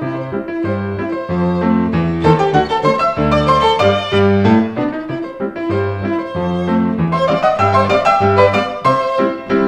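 Violin and piano playing an instrumental piece, the violin carrying the melody over a steady piano bass.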